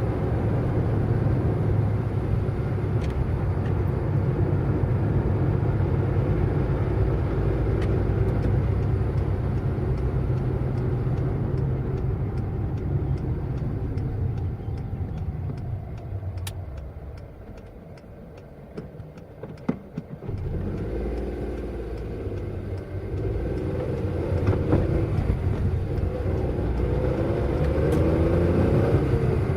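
Car driving, with a steady low engine and road rumble. About halfway through it dies down for a few seconds, with a few sharp clicks, then builds again as the engine speeds up, its pitch wavering up and down.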